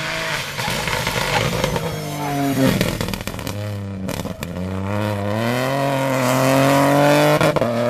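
Peugeot 208 rally car at full stage speed: the engine note drops as it lifts off for a bend, then climbs steadily under hard acceleration to its loudest near the end, with a few sharp pops just before the end.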